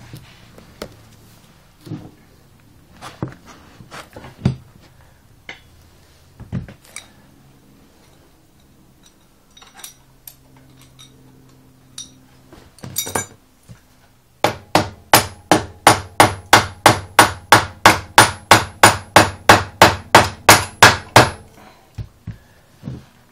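A rubber mallet knocking a chrome exhaust silencer can onto the downpipe of a Triumph America motorcycle. First come scattered knocks and clunks, then from about halfway a fast, even run of some two dozen blows, three or four a second, as the can is driven home.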